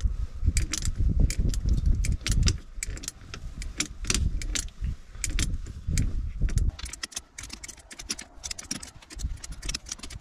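Bursts of metallic clicking and clinking from a hand wrench being worked on the bolts at a Ford tractor's gear-shift linkage, in irregular clusters over a low rumble.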